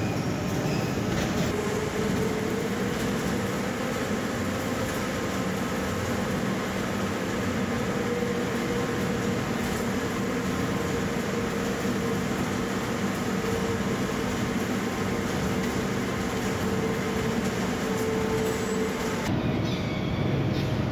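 Steel coil slitting line machinery running: a steady industrial rumble with a whine that comes in about two seconds in, holds nearly level and stops near the end.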